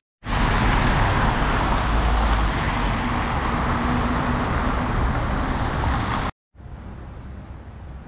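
Road traffic on a wet street: a steady noise of tyres and car engines that cuts off suddenly about six seconds in.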